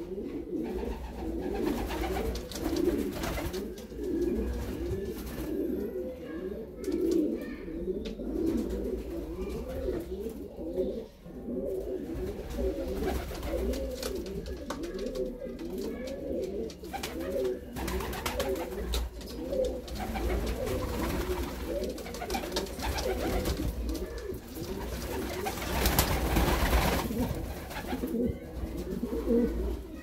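Homing pigeons cooing in their loft, many overlapping rolling coos going on continuously: the courtship and nesting calls of newly paired birds. Near the end there is a brief louder rush of noise.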